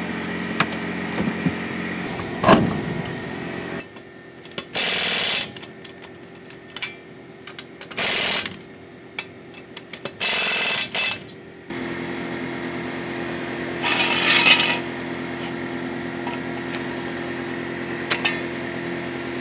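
Lug nuts being run onto a truck wheel with a power tool, in three short bursts of under a second each. A steady mechanical hum runs underneath, and there is a sharp clank about two and a half seconds in.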